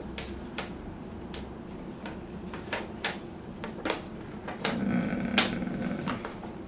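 Sheet of adhesive sticker paper being handled and peeled from its backing: scattered crisp clicks and crackles, with a louder stretch of rustling about two-thirds of the way through.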